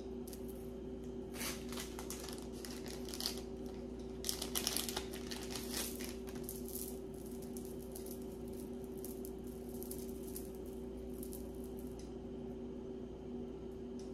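Small scattered clicks and light rustling of a beaded chain bracelet being handled, over a steady low hum.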